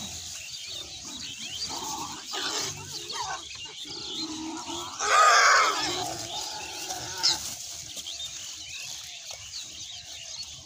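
A herd of boar-type pigs calling and squealing, with one loud squeal about halfway through and a short high squeak a couple of seconds later.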